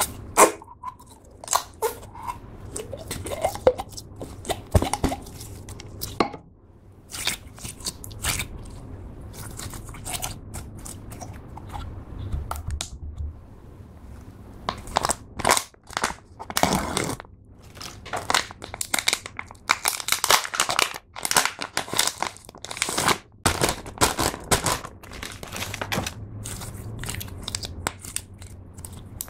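Slime being poured and handled by hand: sticky crackling with many sharp little pops and clicks, thickest in the middle stretch.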